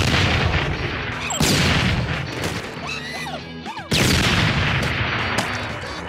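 Landmine explosions, three sudden loud blasts: one at the start, one about a second and a half in, and one about four seconds in, each dying away slowly. Monkey shrieks come between the second and third blast, over background music.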